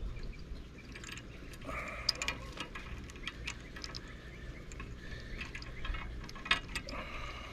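Scattered light clicks and ticks of safety wire being threaded by hand through an anchor shackle and swivel and pulled snug, a sharper click about two seconds in and another near the end.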